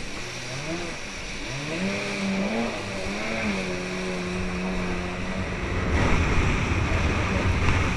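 Kawasaki 550 jet ski's two-stroke engine revving, its pitch climbing and dipping before holding steady, over rushing, splashing water. About six seconds in, the water and spray noise gets louder and rougher.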